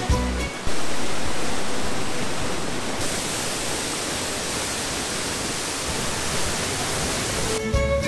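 Steady rush of a tall waterfall pouring into its rocky pool and stream, starting suddenly about a second in and running on until background music returns near the end.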